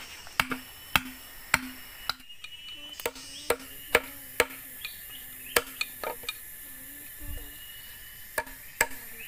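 Machete blade chopping into a thick green bamboo tube: a string of sharp knocks, roughly two a second, with a couple of short pauses.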